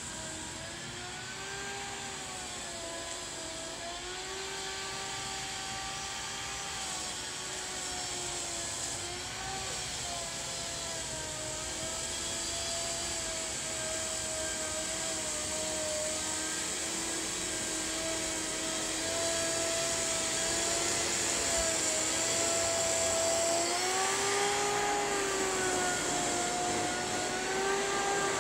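Worx electric lawn dethatcher running as it is pushed across a short-mown lawn: a steady electric-motor whine with the rasp of the spinning tines, its pitch dipping and recovering slightly as the load changes. It grows louder over the last several seconds as the machine comes closer.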